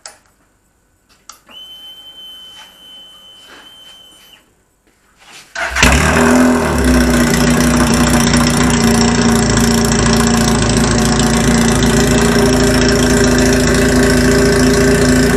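400cc sports bike engine being started with its exhaust removed: a faint high steady whine for about three seconds, then the engine catches about five and a half seconds in and idles loudly and steadily with no exhaust fitted.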